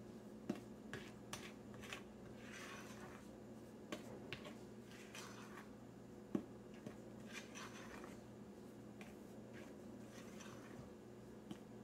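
Silicone spatula folding cake batter into flour in a glass mixing bowl: faint soft scrapes and squishes, with a few light clicks of the spatula against the glass.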